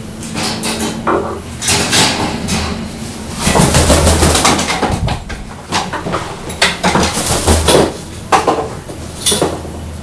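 Irregular clattering knocks and rattles, with a dense run of sharp hits from about three to eight seconds in.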